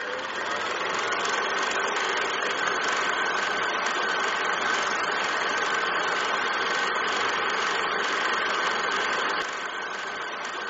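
A film projector running: a steady mechanical whirring with a faint high whine, a little quieter near the end.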